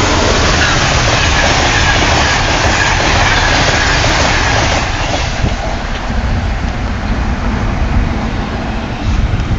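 Amtrak train passing at speed: a loud rush of wheels on rail with some clatter, easing off about five seconds in.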